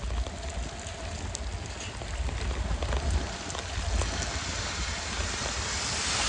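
Wind rumbling on the microphone over a steady hiss of rain and water spray as a bicycle rides through a flooded street in a downpour, growing louder toward the end.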